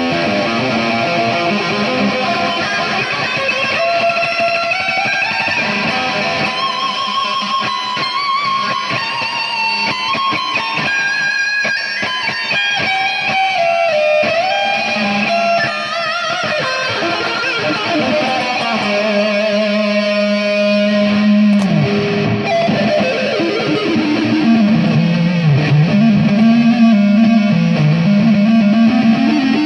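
Electric guitar playing: sustained notes that slide and bend in pitch, with vibrato, and a low note that dips down and comes back up near the end.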